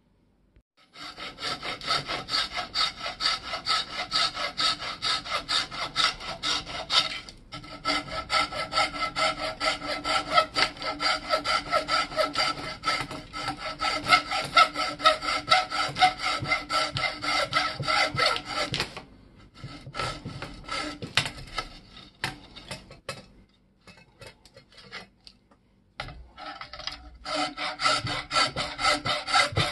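Hacksaw sawing through the hammer-axe's old haft held in a vise: quick back-and-forth strokes with the thin blade ringing. The strokes thin out and stop for a few seconds about two-thirds of the way through, then pick up again near the end.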